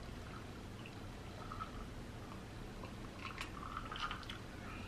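Faint drinking from a glass of ice water: quiet sips and swallows, then a few light clicks of ice cubes against the glass in the last couple of seconds.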